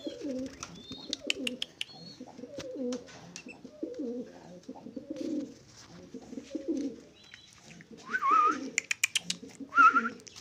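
Caged doves cooing over and over in low, rolling calls, with short high chirps from small cage birds and a few light clicks. Two louder, higher bird calls come near the end.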